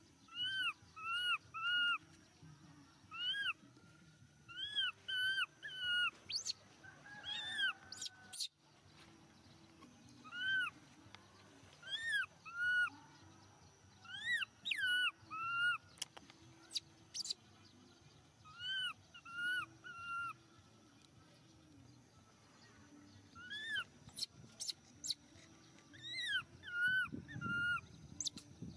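Baby macaque giving short, high squeaking calls, each rising then falling in pitch, in runs of two to four every few seconds. A few sharp clicks fall between them.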